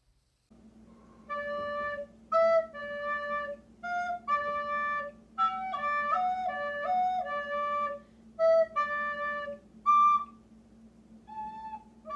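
Recorder playing a slow, simple tune: a string of held notes, most on one or two pitches with short steps up and down and brief breaks between them, over a steady low hum.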